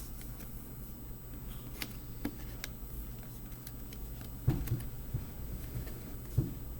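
Faint clicks and taps of fingers working a speaker cable under the plastic retaining tabs of a laptop's chassis, with a few louder knocks about two, four and a half, and six and a half seconds in.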